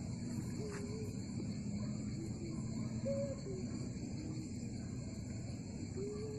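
Evening insect chorus, with crickets or similar insects keeping up a steady high-pitched trill. A few short, arched, lower calls come through about a second in, around three seconds in and near the end.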